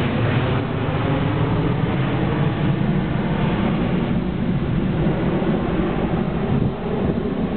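Three-engine McDonnell Douglas MD-11 airliner climbing away after takeoff, its jet engines a loud, steady deep rumble. The higher hiss thins out after about a second as the plane recedes.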